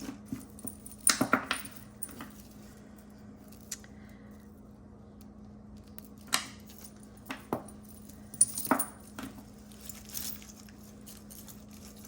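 Tangled metal jewelry chains clinking and jingling as they are handled and pulled apart, in scattered clusters of sharp clicks over a steady low hum.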